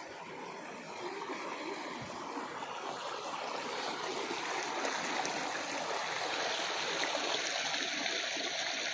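Water running in a stream, a steady rushing noise that grows louder over the first few seconds and then holds.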